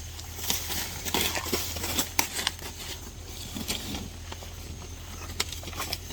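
Irregular scraping and clicking strokes of a brush being worked over an animal's coat, busiest from about one to two and a half seconds in, under a steady low hum.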